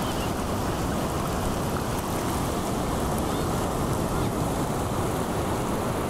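Steady rushing noise of ocean surf, with a few faint high calls above it.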